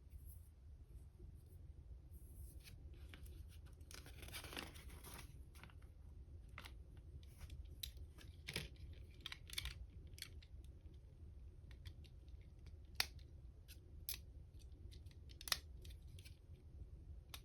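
Small plastic LEGO pieces being handled and snapped together: scattered light clicks, a rustling stretch about four seconds in, and two sharper clicks near the end.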